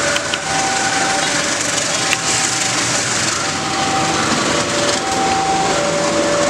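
Railroad level-crossing warning alarm sounding, a high and a low electronic tone taking turns about every three-quarters of a second, over a loud steady rushing noise.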